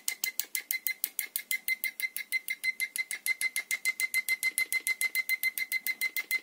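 DT-838 digital multimeter's continuity buzzer giving short beeps, about seven or eight a second, each with a click as the probe tips are tapped together rapidly. The buzzer sounds on every touch with no missed contacts, a fast-responding continuity tester.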